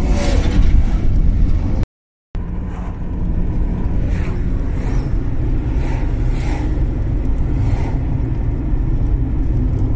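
Steady engine and road rumble of a moving car, with the sound cutting out completely for a moment about two seconds in.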